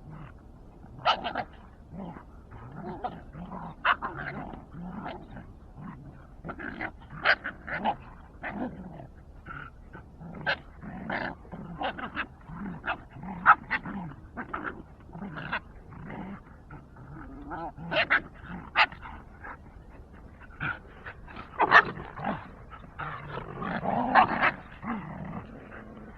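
Dogs play-fighting: low growling with many short, sharp barks and yelps at an uneven pace, and a louder, longer stretch of it near the end.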